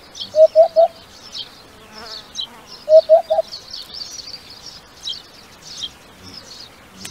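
Eurasian hoopoe calling its three-note 'oop-oop-oop', twice, about two and a half seconds apart, over steady high chirping of other birds.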